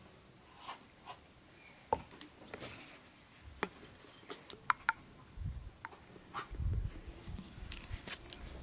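Scattered small clicks and light taps of a plastic oil bottle and a glass cup being handled while cooking oil is poured, with a few soft low thumps in the second half.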